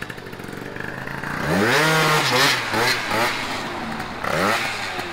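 Two-stroke scooter engine being warmed up, idling and then revved: one longer rev about a second and a half in, followed by several quick throttle blips with the pitch rising and falling each time.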